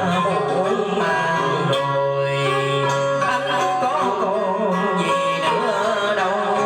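Vietnamese cải lương accompaniment: plucked string instruments with a wavering, bending melody line over steady held notes.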